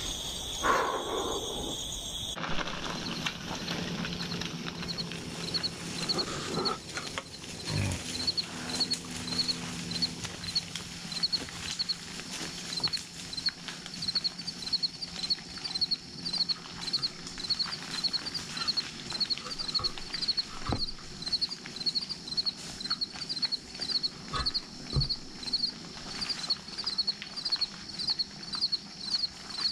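Insects chirping in a steady rhythm, about two short high chirps a second, with a few dull knocks.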